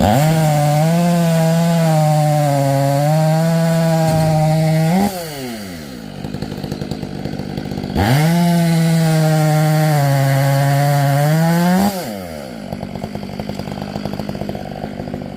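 Stihl chainsaw run at full throttle twice, each time for about four seconds, with its pitch wavering while it is held open, and dropping back to idle in between and near the end.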